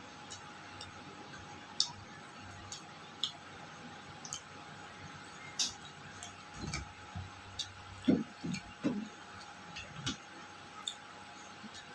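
Eating sounds: scattered small clicks and taps, with a cluster of low, short mouth and chewing sounds in the middle, the loudest about eight seconds in.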